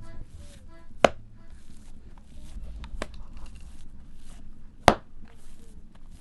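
Sharp, hard knocks: two loud strikes about four seconds apart with a lighter one between them, amid fainter clicks and clatter.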